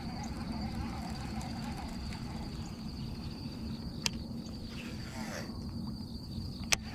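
Insects chirring in one steady high-pitched tone over a low outdoor rumble, with two sharp clicks, one about four seconds in and a louder one near the end.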